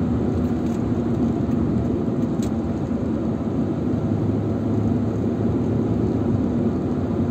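Steady low road and engine rumble of a car driving at city speed, heard from inside the cabin.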